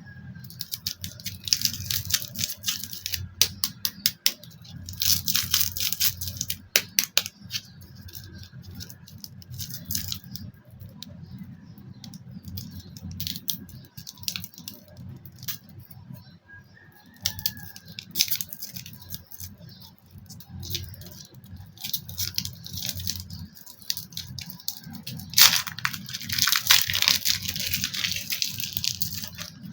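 Toy packaging being handled and opened: bursts of rustling and tearing with many sharp clicks and rattles, coming and going, the longest burst near the end.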